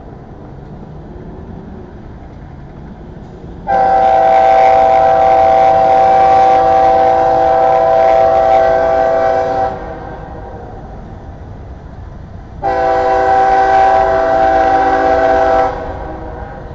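A CSX freight locomotive's multi-chime air horn sounds two long blasts, one about six seconds and one about three seconds, as the train approaches a grade crossing. A low train rumble runs between the blasts.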